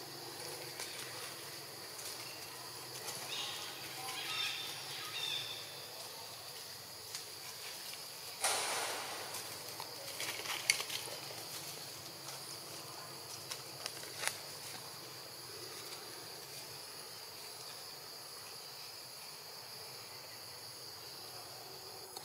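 Steady high-pitched insect drone of the forest, with a brief rustling scuffle in dry leaves about eight seconds in and a few sharp clicks soon after as young macaques tussle on the ground.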